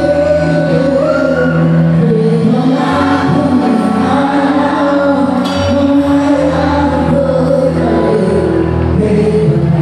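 A live band playing a song with singing, backed by electric guitar, keyboards and drums.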